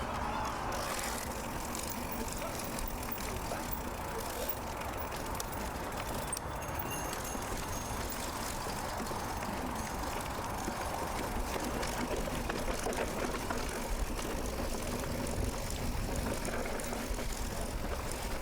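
Steady wind rush and rolling tyre noise from a mountain bike ride on a forest road.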